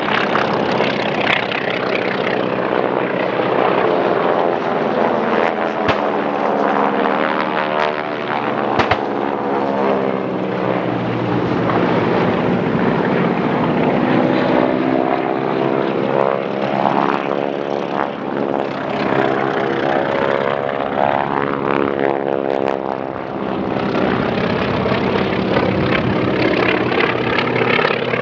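Several propeller-driven piston warplanes flying low passes, their engines droning loudly and continuously. The pitch sweeps up and down as the aircraft come and go overhead.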